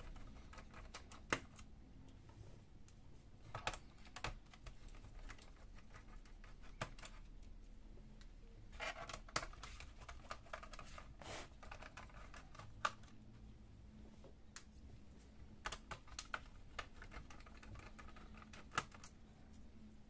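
Small screwdriver turning out the screws of a Toshiba Satellite C660 laptop's plastic bottom cover: scattered light clicks and scrapes, a sharper tick every second or two, and a couple of short rattling runs of clicks.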